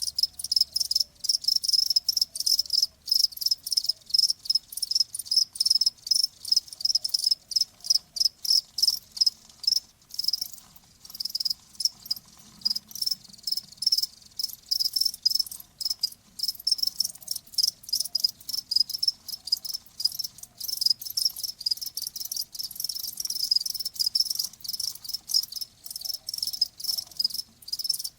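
Crickets chirping in rapid, continuous pulses, high-pitched and steady.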